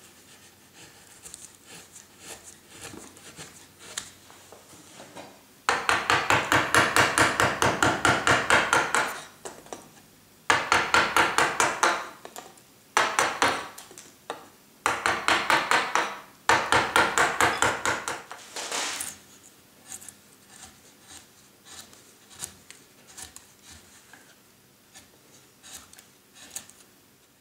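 Carving chisel in limewood, driven by rapid runs of sharp taps on the tool, several strikes a second, in five bursts of one to three seconds each. Quieter paring cuts and scrapes of the blade come before and after the bursts.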